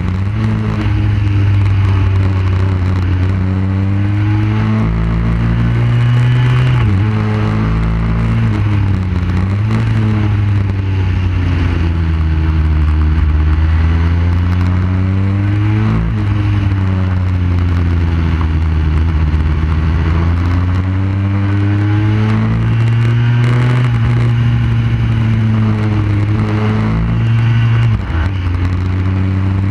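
Motorcycle engine heard from an onboard camera at track speed, its pitch climbing under acceleration and falling off for corners, with several sudden pitch jumps at gear changes, over steady wind noise.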